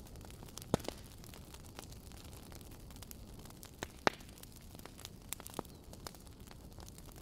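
Steady low hiss with scattered crackles and clicks, and two sharper pops, about a second in and about four seconds in.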